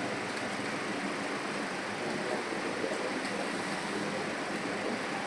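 Computer keyboard keys clicking as someone types at speed, faint irregular ticks over a steady rushing background noise.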